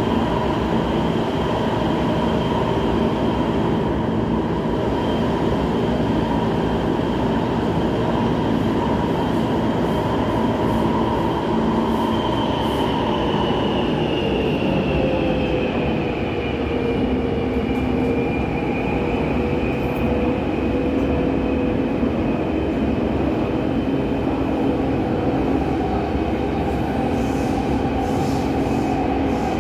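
Interior running noise of a Taipei Metro C321 train with GTO-VVVF traction: a steady rumble of wheels on rail under a whine from the drive, which slides down in pitch about halfway through and then holds steady.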